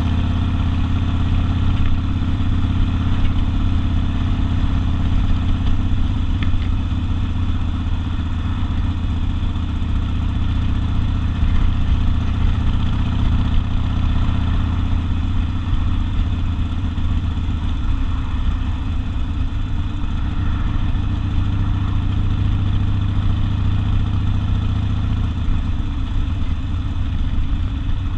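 Harley-Davidson Sportster's air-cooled V-twin with open exhaust, running at a steady engine speed.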